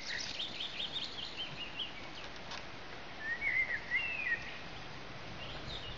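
Small songbirds chirping: a quick run of short up-and-down chirps in the first couple of seconds, then a warbling phrase around the middle, over a steady background hiss.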